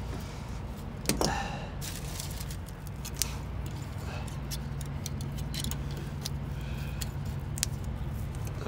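Scattered light clicks and rattles of hand work, over a steady low mechanical hum.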